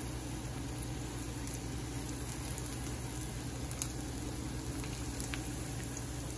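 Battered banana fritters (maruya) frying in oil in a steel wok: a steady sizzle with a few faint pops.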